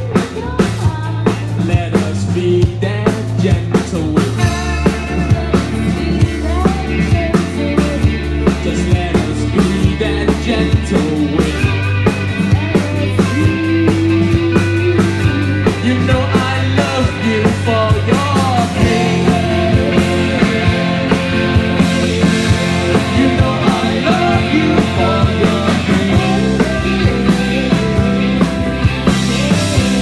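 Live rock band playing: electric guitars, bass, drum kit with a steady beat, and keyboard, with singing over the top.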